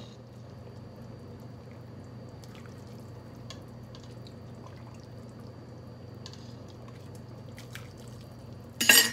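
Quiet kitchen background with a steady low hum and a few faint small clicks, then a loud, short burst of hissing noise near the end.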